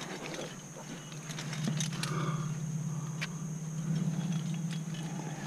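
Climbing gear (carabiners and cams) clinking on a harness, with scuffs of hands and shoes against the sandstone, over a steady low hum.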